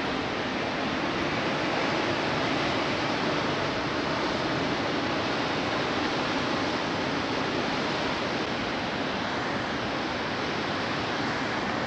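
Steady rushing noise of ocean surf breaking on rocks below, unbroken and even in level.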